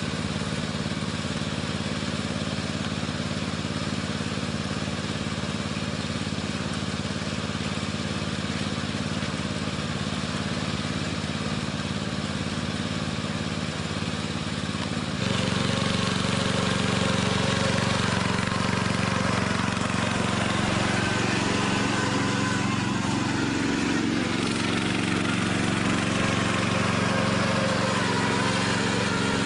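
Ride-on lawn mower engine running steadily. About halfway through it turns suddenly louder and its pitch shifts as the mower drives off across the grass.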